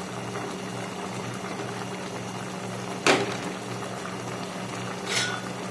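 Pot of chicken tinola soup boiling with a steady bubbling, with a sharp knock about three seconds in and a short metallic clink about five seconds in.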